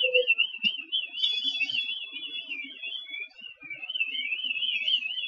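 Electronic siren warbling rapidly at a high pitch, about four to five wavers a second, with a steady high tone beside it for the first half.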